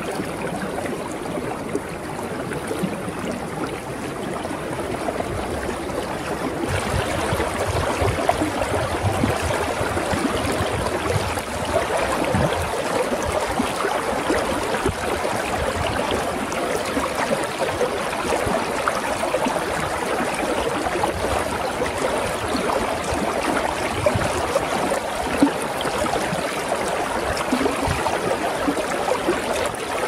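Shallow river water running close by over stones and between shelves of ice, a steady rushing and gurgling. It grows louder and fuller about seven seconds in.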